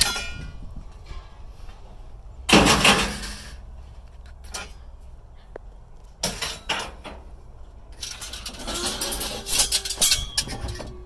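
Scrap metal clanking and rattling as pieces are handled and tossed, with a loud crash about two and a half seconds in, a few single knocks, and a busy run of rattling near the end.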